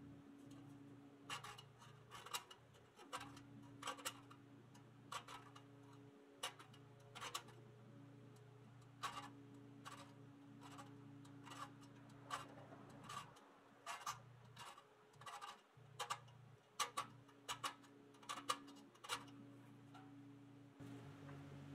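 Light, sharp clicks and taps of metal on metal as a painted fender is pressed and worked into place on a Kingsbury toy car body, coming irregularly, one or two a second.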